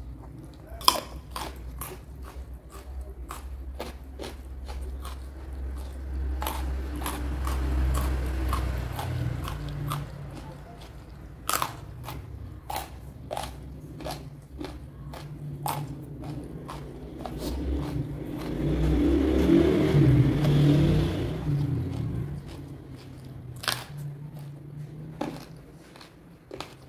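Close-miked eating: crisp crunching bites and chewing, with sharp crunches scattered all through. A low rumble runs underneath for the first nine seconds or so.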